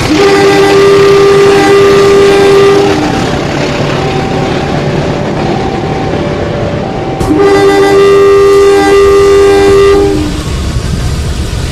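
Battery-powered toy train's electronic horn sounding twice, a steady two-note blast of about three seconds each time, over the continuous whir of its motor and wheels on the plastic track.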